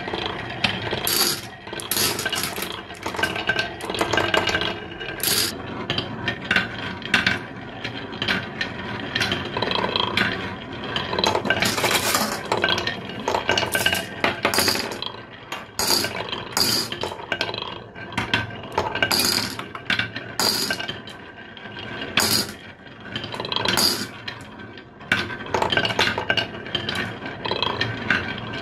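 Glass marbles rolling down a carved wooden zigzag marble track: a continuous rolling rumble with many sharp clicks and clinks as they run through the wooden curves.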